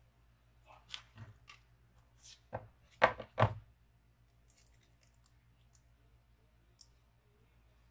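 Unboxing handling of a cardboard iPhone box and the phone: a run of short scrapes and taps as the phone is lifted out, with two louder knocks about three seconds in, then a few faint clicks of fingernails on the phone.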